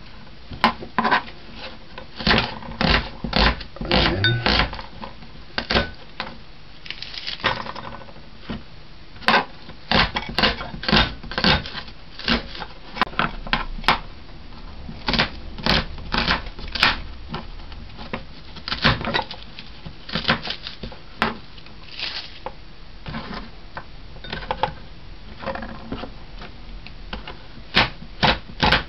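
Kitchen knife cutting vegetables on a cutting board: sharp, irregular knocks of the blade on the board, coming in quick runs of several strokes with short pauses between.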